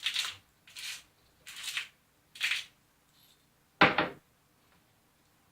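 Pepper grinder cracking peppercorns in four short grinding strokes, about one every 0.8 s, followed about four seconds in by a single loud sharp knock.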